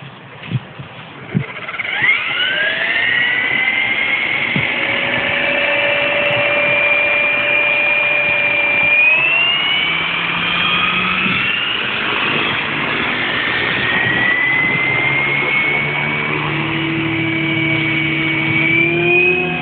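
Hurricane 550 radio-controlled model helicopter spooling up. After a few clicks, a whine rises about two seconds in and settles into a steady high-pitched whine, which steps up in pitch around the middle and again near the end.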